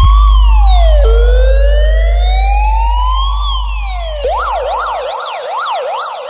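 Electronic siren effect played through a PA sound system. It starts as a slow wail, rising and falling back twice, then about four seconds in switches to a fast up-and-down yelp of about two cycles a second. A deep bass drone underneath fades away.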